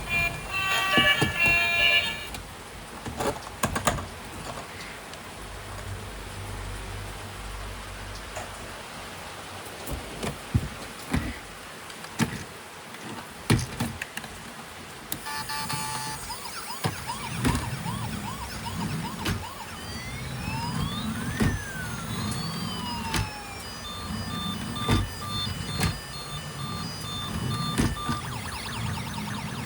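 Electronic siren sound from a battery-powered toy emergency vehicle's sound chip. From about halfway through it wails in glides up and down, then plays a run of short, evenly repeated beeps. Before it come scattered clicks and knocks, with a snatch of music at the very start.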